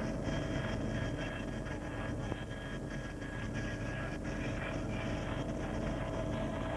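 Police helicopter's turbine engine and rotor heard from inside the cabin: a steady dense rumble with a few held whining tones over it.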